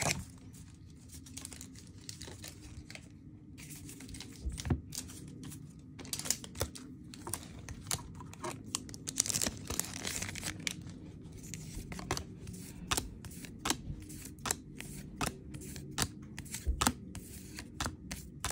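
Foil booster-pack wrapper crinkling and tearing, with many small sharp clicks and snaps of trading cards being handled.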